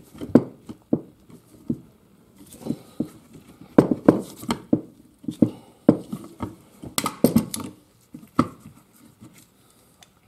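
Steel gearbox parts and tools clinking and knocking in irregular bursts while a sprocket is worked at on a gearbox shaft, without it coming free.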